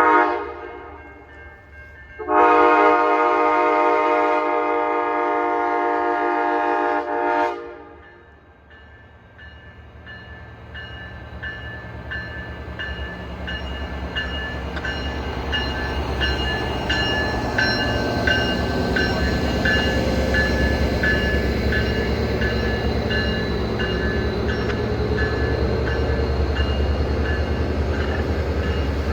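Passenger train horn sounding a brief toot and then one long blast of about five seconds. The horn is followed by the train's rumble growing louder as it approaches and passes, with wheels clicking steadily over the rail joints.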